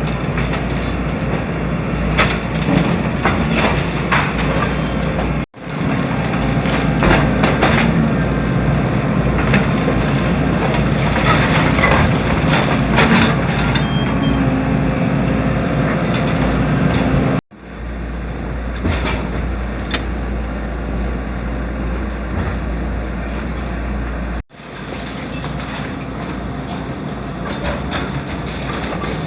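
Excavator engine running under load, with repeated knocks and scrapes of concrete being broken up, in several stretches joined by abrupt cuts.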